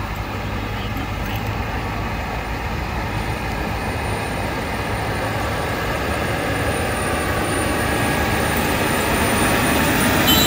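Large farm tractor's diesel engine running as it drives slowly past, growing louder as it comes close near the end.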